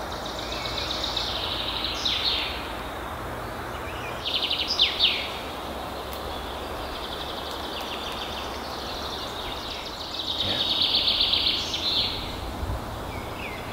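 Songbirds singing in woodland: several high, rapid trilled phrases, the longest and loudest swelling about ten seconds in, over a steady background hiss.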